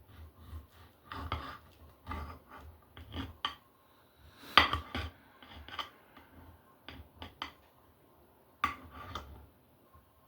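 Cutlery clinking and scraping on a plate in irregular strokes, with a sharper clink about four and a half seconds in and another near the end, typical of cutting and eating a steak.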